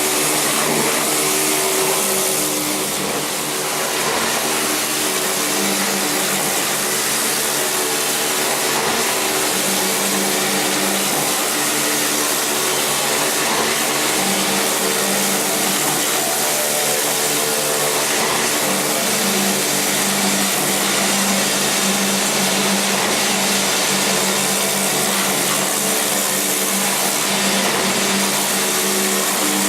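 Grate-cleaning machine running steadily: a motor hum under a loud, even hiss.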